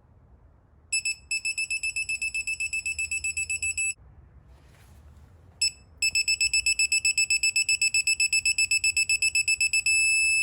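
Digital torque wrench beeping in quick pulses, about eight a second, as oil gallery gasket bolts are tightened toward a 10-pound setting; it stops, then beeps again and runs into one steady tone near the end, the signal that the set torque has been reached.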